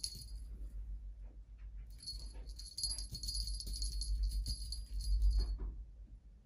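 Small jingle bell on a cat wand toy jingling as the kitten bats and tugs at it, brief at first and then almost continuous from about two seconds in until shortly before the end.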